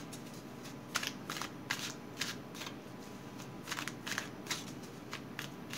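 A deck of tarot cards being shuffled by hand: irregular soft snaps and slaps of cards against each other, in clusters with a sparser stretch around the middle.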